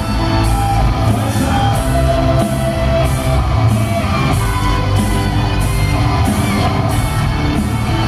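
A live rock band playing loud through the PA: electric guitar, bass and drums with a steady cymbal beat about twice a second, and shouted vocals.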